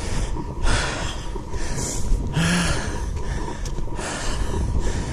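A person breathing heavily and hard after a steep uphill walk, a rushing breath about every second or so, with a short voiced grunt on one breath near the middle.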